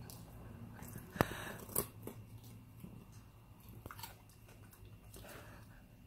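Dog crunching and chewing a carrot: sharp crunches, the loudest about a second in, another just before two seconds and a pair near four seconds, with quieter chewing between.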